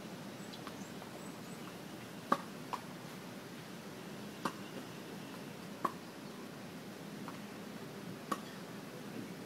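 Tennis balls struck by racquets during a warm-up rally: a sharp pop every second or two, some louder than others.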